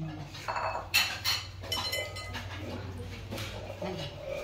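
Kitchen cookware clattering: a run of clinks and knocks of metal utensils and dishes being handled, with another knock later, over a steady low hum.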